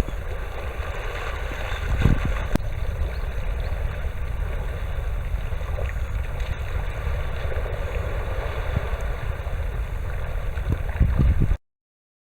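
Wind buffeting the microphone over a steady rush of sea noise, with heavy low rumbling gusts; it cuts off abruptly near the end.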